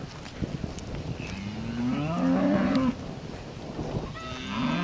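Cows mooing: one long moo about a second and a half in that rises and then holds, and another starting near the end.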